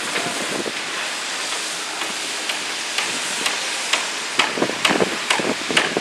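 Construction-site machinery noise, a steady hiss with walk-behind power trowels running on a concrete slab. About halfway in, a run of irregular sharp knocks starts and carries on to the end.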